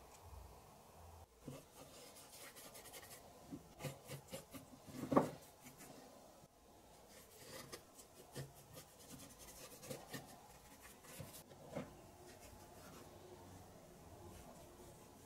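A small paintbrush scratching and dabbing on a carved wooden fan wheel, with light knocks as the wooden part is handled on the workbench; the loudest knock comes about five seconds in.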